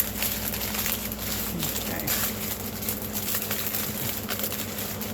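Small plastic bags of diamond-painting drills being handled, crinkling and rustling in a dense run of quick crackles.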